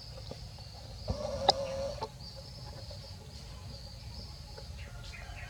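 Steady, high insect chirring, with a short animal call with a sharp click in it between one and two seconds in.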